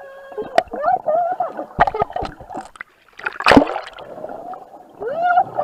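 Underwater sound picked up by an action camera inside its waterproof case: muffled water movement and wavering tones, several sharp knocks on the case in the first two and a half seconds, and a loud short burst of water noise about three and a half seconds in.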